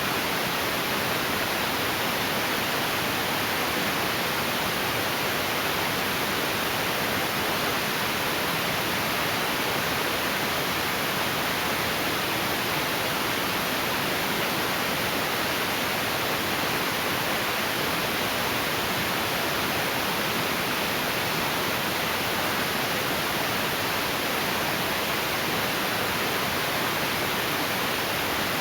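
Heavy rain pouring down steadily in a storm, a loud, even hiss without a break.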